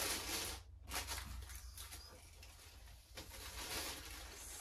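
Tissue paper rustling and crinkling as it is pulled open inside a sneaker box, loudest in the first half-second, then softer rustling.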